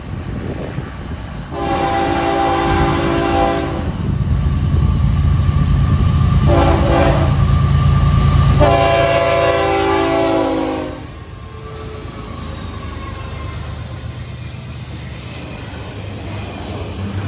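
Florida East Coast Railway freight train's lead GE ES44C4 locomotive sounding its multi-note air horn three times, a long blast, a short one and a long one, for a grade crossing. The diesel engines' low rumble is loudest as the locomotives pass, and after about eleven seconds the horn stops and the autorack cars roll by more quietly.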